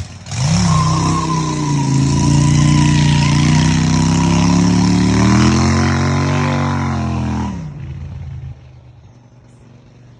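Loud engine of a motor vehicle riding past close by, revving. It comes in within the first second, climbs in pitch and then drops as it goes by, and fades out about eight seconds in.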